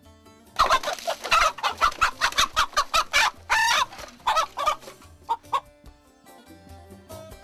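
A hen squawking in alarm as it is caught by hand: a rapid run of loud, short squawks lasting about five seconds, with one longer cry in the middle.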